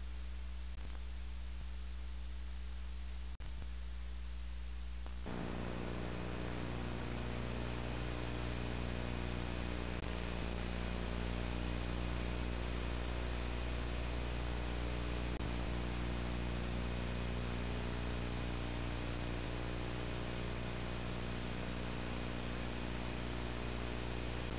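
Steady electrical hum with a ladder of overtones from VHS tape playback over the blank lead-in. It drops out for an instant about three and a half seconds in, and from about five seconds in an even tape hiss joins the hum.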